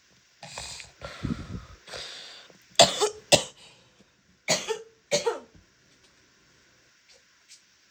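A woman's wet, phlegmy coughing. After a couple of seconds of throat clearing, two runs of about three sharp coughs each come about three and five seconds in.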